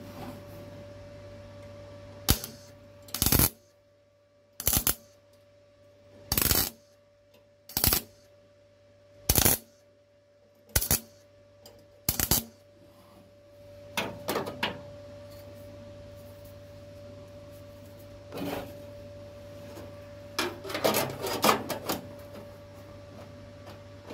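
MIG welder laying short tack welds on sheet steel, a brief crackling burst each time. Eight tacks come about a second and a half apart, then a few more are spaced out and a quick cluster of tacks comes near the end.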